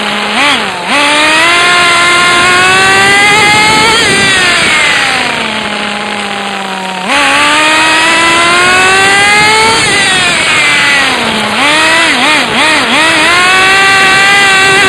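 Radio-controlled car's motor, heard from a phone strapped onto the car, revving up and down as it drives. The pitch climbs with speed, drops to a steady low note about five seconds in, jumps back up about seven seconds in, and gives a few quick blips of throttle near the end.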